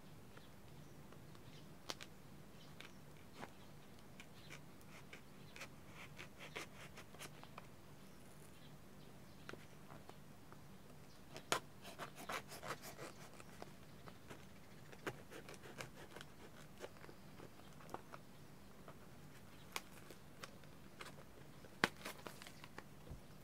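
Packing tape and cardboard being cut and picked at with a utility knife and scissors: faint, scattered scratches, clicks and crinkles, busiest in a cluster a little before the middle and again near the end.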